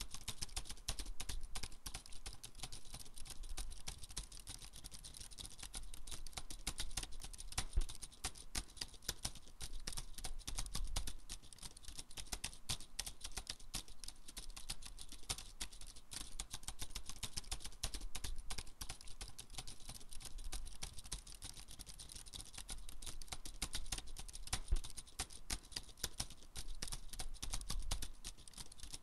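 Rapid typing on a laptop keyboard: a dense run of key clicks that goes on in spells with short lulls.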